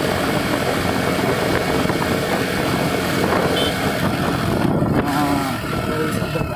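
Motorcycle engine running at steady road speed, heard from the rider's seat, under a constant rush of wind and road noise.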